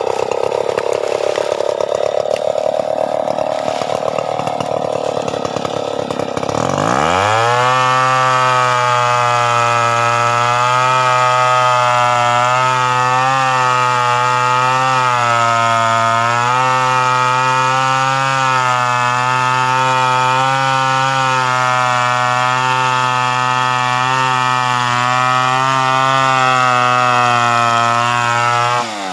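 Stihl 070 two-stroke chainsaw running at a lower, wavering speed at first. About seven seconds in, it revs up sharply to high revs and holds there with small dips in pitch, then drops off right at the end.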